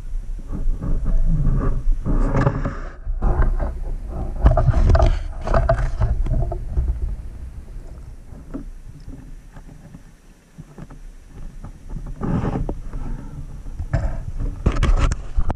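Muffled sloshing and rushing of water around a spearfisher's camera on a night dive, coming in irregular surges a second or two long, loudest in the first half and again near the end.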